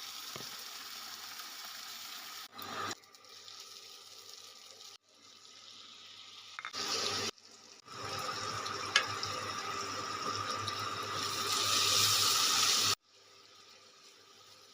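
Water running from a kitchen tap into a sink, in several short clips that start and stop abruptly; the running is loudest for a few seconds before it cuts off near the end.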